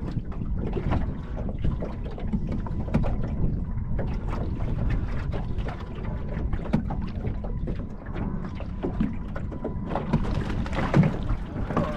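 Wind buffeting the microphone over choppy water slapping against a small boat's hull, with scattered light clicks and knocks.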